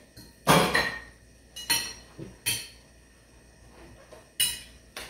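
Forks knocking against plates, four sharp ringing clinks, the first the loudest.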